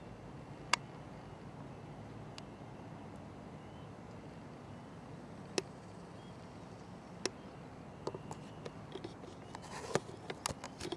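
Quiet outdoor ambience: a steady low background hiss with a few sharp, isolated clicks, coming faster in the last few seconds.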